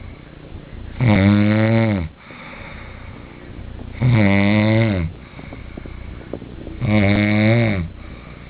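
A man snoring in his sleep: three loud snores about three seconds apart, each lasting about a second and falling in pitch as it ends, with quieter breathing between.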